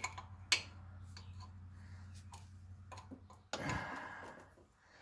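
Scattered light metallic clicks of a wrench working on engine oil fittings, over a steady low hum, with a longer scraping rustle about three and a half seconds in.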